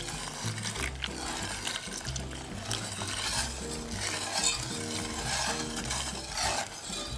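Wire whisk scraping and stirring in a stainless steel saucepan, a run of repeated strokes through a cocoa and sugar mix as milk goes in, over soft background music.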